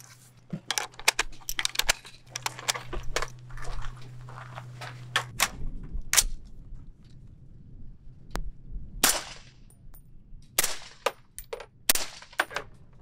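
Metallic clicking and clinking of cartridges and a magazine being handled, then in the second half several shots about a second apart from a .308 AR-style rifle fitted with a prototype .30 cal suppressor.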